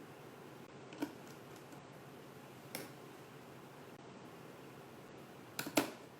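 A few small sharp clicks and taps of hand work on an opened iPhone 6 and its small tools: one about a second in, another near the middle, and a quick run of three near the end, over a steady faint hiss.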